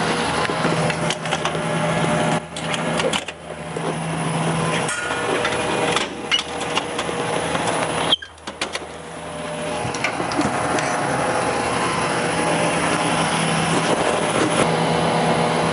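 Clicks and knocks of the metal front panels of a DualBeam electron microscope cabinet being unlatched and swung open, over a steady mechanical hum of fans and air handling.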